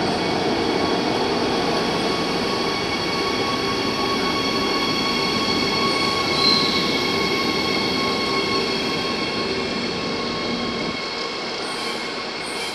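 DB class 147 (Bombardier TRAXX AC3) electric locomotive passing close by with its double-deck coaches: a steady rail rumble with several steady high-pitched whine tones over it. A brief squeal comes about six and a half seconds in, and the sound eases off a little near the end as the coaches roll past.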